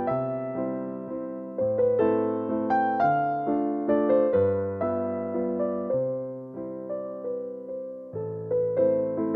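Background music: a gentle electric piano melody of struck, fading notes over low chords that change every second or two.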